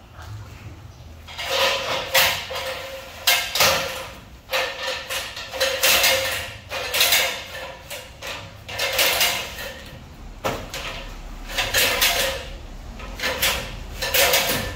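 A series of loud scraping noises at irregular intervals, roughly one a second, starting about a second and a half in.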